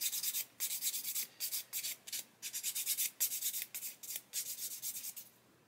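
Flat sanding stick rubbed back and forth over a small plastic model-kit part in quick, even strokes, about three a second, sanding off the ejector-pin tabs and sprue nibs. The strokes stop shortly before the end.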